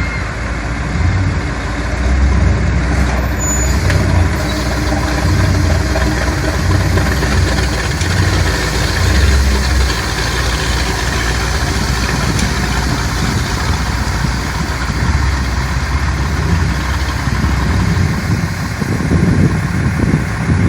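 An engine idling steadily, with a low rumble that swells and eases every second or so.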